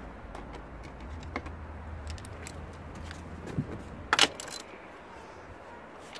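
Metal clinks of a socket wrench being handled and fitted onto a suspension strut's top-mount bolt, scattered light clicks with the sharpest clinks about four seconds in.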